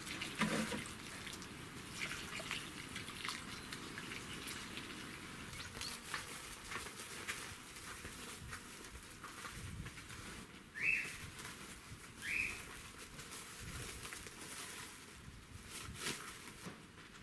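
Two short rising bird chirps about a second and a half apart, over faint scuffs and rustles.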